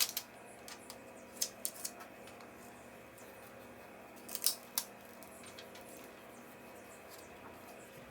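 A few light, sharp clicks and crinkles of a thin plastic screen protector and its backing film being handled and peeled, loudest in a cluster about four and a half seconds in, over a faint steady hum.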